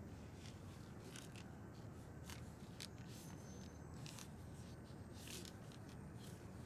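Paper banknotes being counted through by hand: a series of faint, short, crisp rustles, irregularly spaced, over a low room hum.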